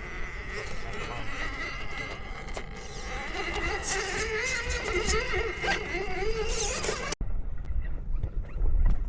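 1/10-scale RC rock crawler's small electric motor and gears whining under load as it climbs rocks, the pitch wavering up and down with the throttle. Wind rumbles on the microphone, and the sound cuts out abruptly about seven seconds in.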